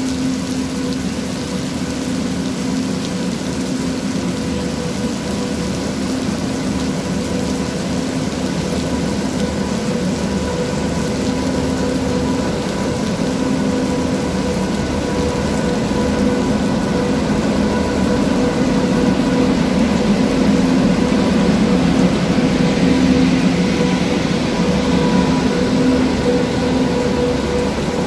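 WAG9 electric locomotive hauling a goods train in slowly, its electrical equipment giving a steady multi-tone hum that grows louder as it comes alongside. Heavy rain hisses steadily throughout.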